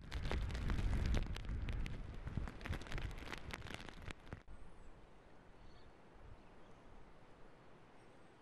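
Wind rumbling on the microphone outdoors, with many sharp irregular crackles over it. It cuts off suddenly about halfway through, leaving only a faint steady hiss.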